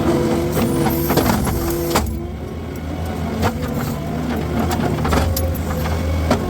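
Skid steer's engine running steadily with a brush cutter attachment at work, with sharp cracks and knocks scattered throughout; the engine eases briefly about two seconds in and then picks up again.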